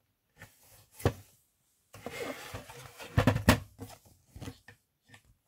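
Handling noise from a plastic security-camera DVR recorder being turned over and set down, with rustling and cables being handled. There is a single knock about a second in, rustling from about two seconds, a few louder knocks soon after, and faint taps near the end.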